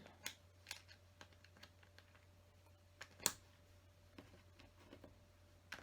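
Small plastic LEGO pieces clicking as they are handled and pressed onto the build. The clicks are faint and scattered, with a sharper one about three seconds in.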